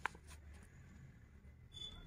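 Paper being handled by hand as a folded card flap is opened: a sharp tap at the start, a few faint ticks of paper, and a brief high squeak near the end.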